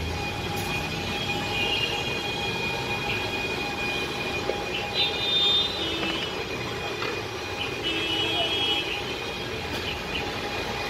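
Steady street traffic noise with a few short vehicle horn toots: one about two seconds in, another around five seconds and another around eight seconds.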